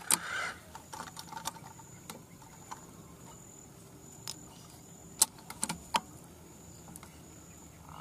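A dozen or so short sharp clicks and taps at uneven intervals, the loudest a little past halfway, over a quiet background with a faint steady high-pitched hum.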